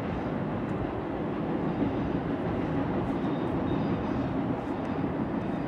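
Freight train's cars rolling across a railroad bridge: a steady rumble of wheels on rails.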